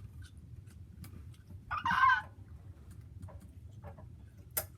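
A short, high-pitched squeal-like call about two seconds in, over a low steady hum, with a sharp click near the end.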